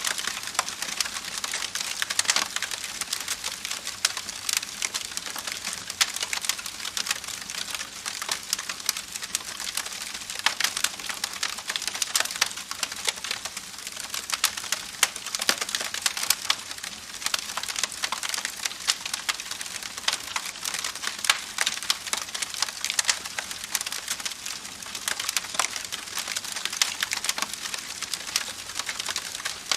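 Campfire crackling: a dense, irregular stream of small pops and snaps from burning wood, with a few louder cracks standing out here and there.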